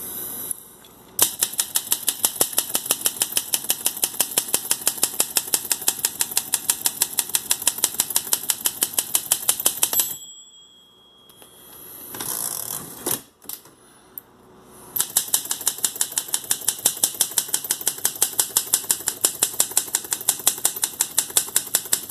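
Olympia Deluxe manual typewriter keys being struck in a fast, even rhythm, about five a second. Near the middle the typing stops: a short ring is followed by the sliding swish and clunk of the carriage being returned to a new line, and then the even typing starts again.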